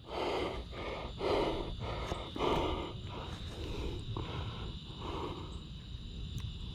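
A person breathing hard in quick, heavy breaths that ease off after about five seconds: out of breath from the excitement of landing a big bass.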